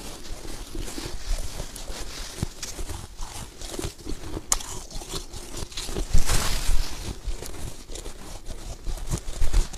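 Soft snow being chewed close to the microphone: irregular crunching and crackling, loudest around six seconds in.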